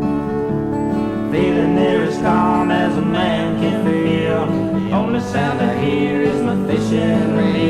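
Country-folk song: acoustic guitar playing held chords, with a voice coming in singing about a second in.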